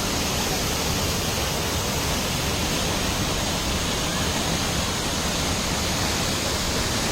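Waterfall roaring steadily as an even rush of falling water.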